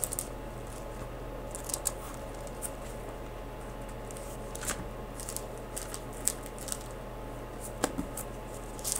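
Thin Bible pages being leafed through, with scattered soft crackles and rustles of paper over a steady low hum.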